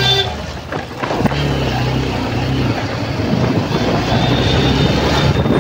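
Road traffic heard from a moving motorbike: a vehicle horn cuts off just at the start, then a steady engine hum. From about halfway on, wind rushing over the microphone grows as the bike picks up speed.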